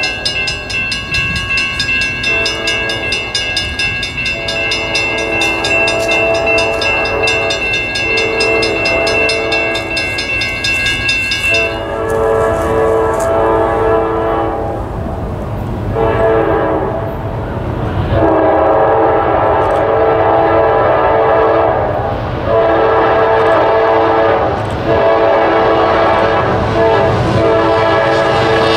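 Norfolk Southern freight locomotive's air horn blowing a string of long blasts and a short one as the train approaches the grade crossing, growing louder. A crossing bell rings rapidly through roughly the first twelve seconds.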